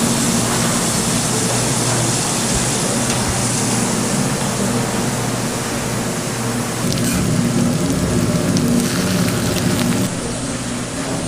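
Food sizzling steadily on a hot cooking surface at a street food stall, with a steady low hum underneath.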